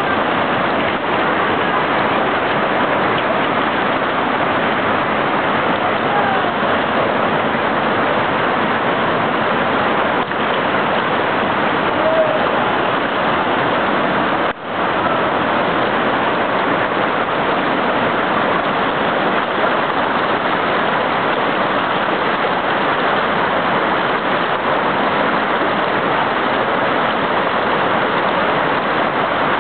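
Steady loud rush of floodwater running down a street, with a brief dropout about halfway through.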